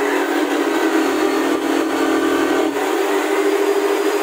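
Table-mounted jigsaw running steadily with a strong even hum while its blade cuts a circle in an MDF board turned on a pivot pin. A lower rumble from the cut drops away about three seconds in.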